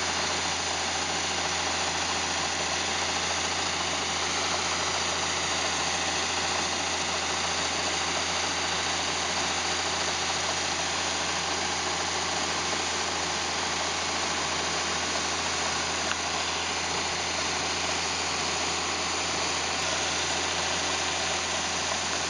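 Combine harvester running steadily while harvesting corn, a constant mechanical din with a low hum under it.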